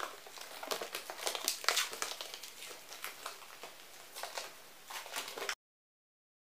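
Plastic stretch wrap (cling film) crinkling as it is handled, a dense run of small crackles that cuts off suddenly near the end.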